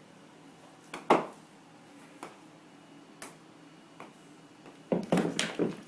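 A few light, separate clicks and taps, the sharpest about a second in, then a short cluster of rapid knocks and rustling near the end.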